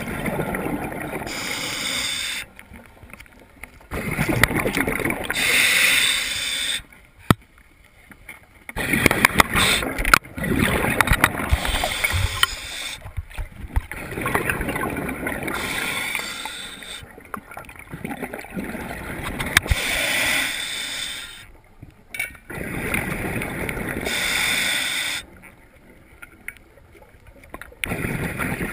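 A scuba diver breathing through a regulator underwater: a rush of exhaled bubbles lasting a few seconds at a time, broken by short quieter pauses while he breathes in. There is one sharp click about seven seconds in.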